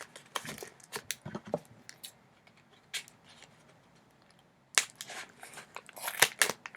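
A delivery package being opened by hand: rustling and crinkling of packaging with short tearing and clicking sounds, a quiet pause in the middle, then a sharp click and more crinkling near the end.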